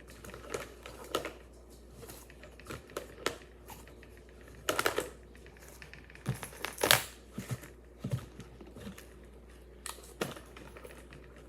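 Fidget toys and stress balls being rummaged through and taken out by hand: scattered small clicks, taps and rustling, with louder rustles about five and seven seconds in.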